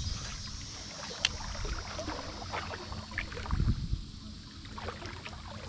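Shallow river water lapping and sloshing close to the microphone, with a few light clicks and ticks.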